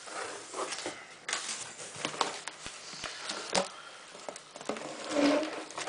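Corrugated cardboard box flaps being pulled open and handled: irregular rustling and scraping of cardboard with a few sharp knocks.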